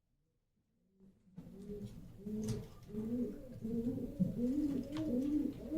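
Domestic pigeons cooing: a quick run of short rising-and-falling coos, about three a second, starting about a second and a half in.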